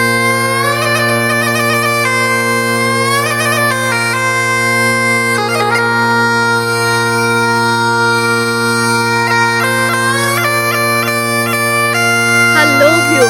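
Background music: a reedy, bagpipe-like wind melody with quick trills played over a steady low drone.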